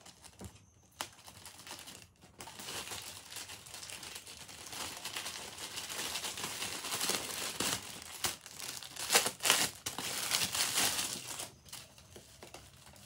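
Thin clear plastic packet crinkling and rustling as it is opened and a folded cloth mekhela sador is pulled out of it. The rustling builds after about two seconds, is loudest around nine to ten seconds in, and dies down near the end.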